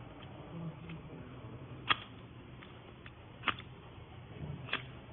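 Three sharp clicks about a second and a half apart: a fishing hook ticking against the groove of a sharpener's diamond rod as it is worked along it.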